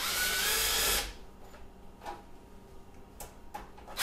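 Cordless drill with a nut driver running for about a second, its motor whining as it backs a cover screw out of the cabinet, followed by a few faint clicks.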